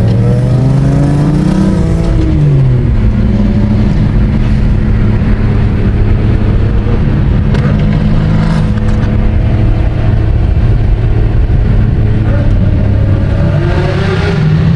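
BMW M3 race car engine at high revs. Its pitch climbs, drops sharply between two and three seconds in, holds fairly steady, then climbs again near the end.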